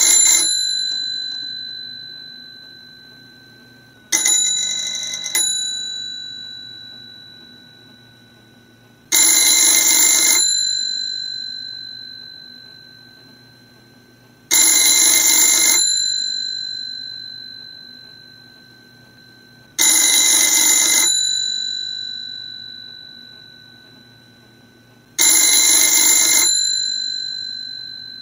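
Mechanikai Művek CB24 rotary-dial telephone's two mechanical bells ringing. There are six rings of about a second each, roughly every five seconds, the second one broken into two short bursts. After each ring the bells hum on and slowly fade.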